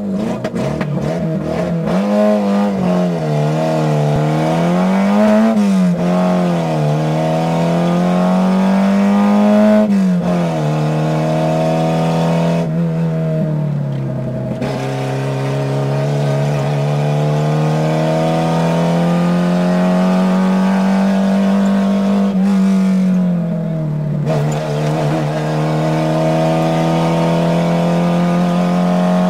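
Citroën AX rally car's engine heard from inside the cabin, revving hard and dropping in pitch at each gear change as it accelerates along the stage. About 13 and 23 seconds in, the revs fall away off the throttle for braking, then build again.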